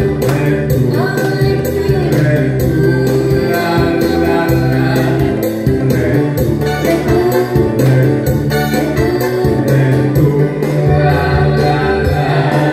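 Live singing over electronic keyboard accompaniment with a steady beat.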